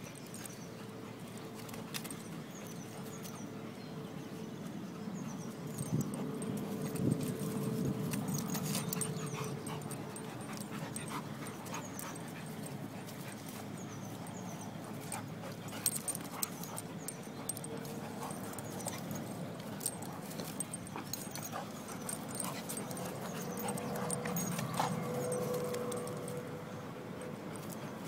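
An Entlebucher Mountain Dog and a Beagle play-wrestling, making dog vocal noises with louder stretches about six to nine seconds in and again near the end.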